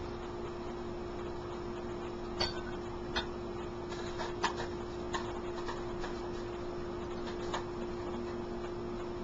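A steady low hum and hiss, with a few light, irregularly spaced clicks and ticks, from about two seconds in to near the end.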